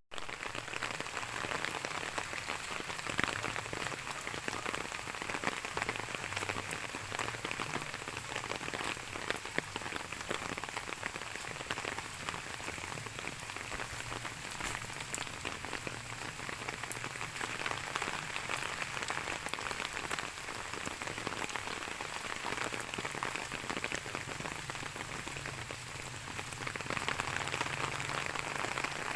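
Steady rain falling: a dense, even patter of many small drops, a little heavier near the end.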